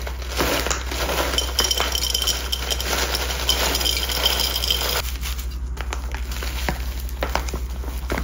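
Crackling, rustling handling noises with light clinks and taps as a houseplant is prepared for repotting, with its pot, potting soil and soil bag being handled. The rustling is dense for about five seconds, then thins to scattered taps.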